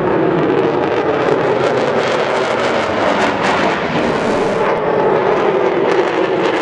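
Aircraft engine noise from a display plane flying past overhead: a loud, continuous rumbling roar that shifts slightly in pitch as it goes by.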